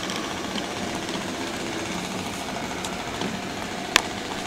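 Large-scale model train running on its track: a steady, fine mechanical rattle of wheels and drive, with one sharp click near the end.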